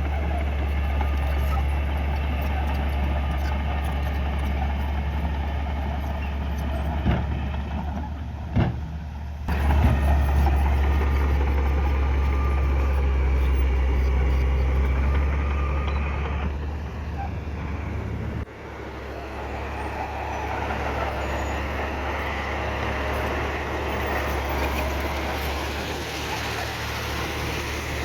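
Heavy diesel earthmoving machinery running under load, a steady deep engine drone with mechanical clatter. A couple of sharp knocks come near the middle, and the sound shifts abruptly twice.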